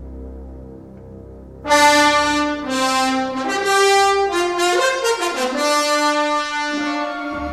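Orchestral music: after a quiet low drone, a loud brass fanfare of trumpets and trombones bursts in about a second and a half in and plays a rising, stepping line of held notes.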